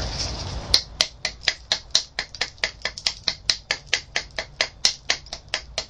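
Edge of a flint biface being trimmed, with rapid crisp clicks, about six a second, as small chips snap off the edge. It starts about a second in.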